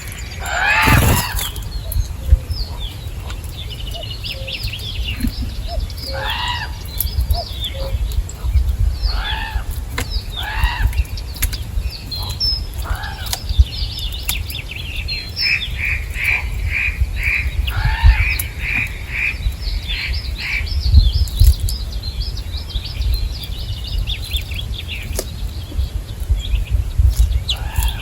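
Several birds calling and chirping at a feeding spot, with many short overlapping calls and, partway through, a quick run of repeated chirps. About a second in there is one loud, brief whoosh, and a low rumble sits under everything.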